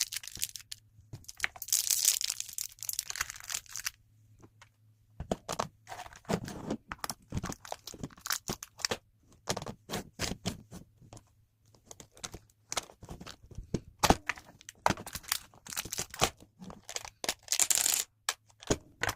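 Plastic grocery packaging rustling and crinkling for the first few seconds, then a run of irregular clicks and knocks as containers and packages are handled and set down while a fridge is being stocked.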